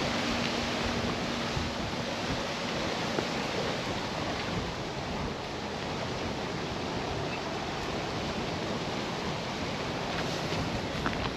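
Steady rushing outdoor noise, a wind-like or surf-like hiss with no distinct events; no clear cat sounds stand out.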